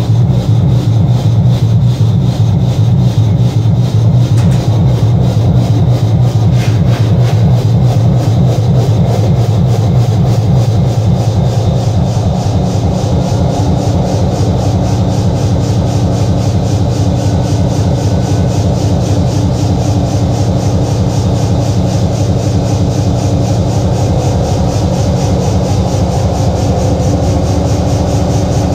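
EMD 16-645 sixteen-cylinder two-stroke locomotive diesel running steadily with a rapid, even low pulse, on its first start in 12 years. It settles a little quieter about twelve seconds in.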